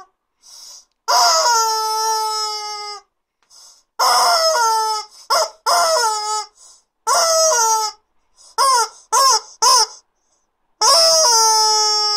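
Rubber chicken squeeze toy squawking as it is squeezed again and again. Several long, falling squawks are broken by a quick run of three short ones past the middle.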